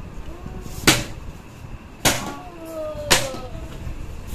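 Plastic water bottle tossed in bottle-flip attempts, landing on a stone-tiled floor with three sharp knocks about a second apart.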